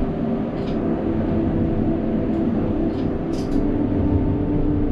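Alstom Citadis tram running, heard from the driver's cab: a steady hum of several held tones from the traction motors over a low rumble, with a few brief high ticks.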